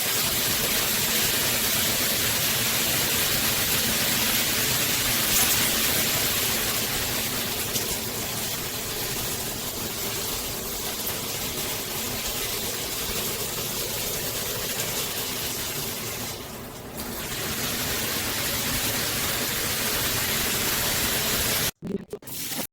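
Water spraying from a square stainless steel rainfall shower head, a steady hiss of falling water. It dips briefly once and cuts off abruptly near the end.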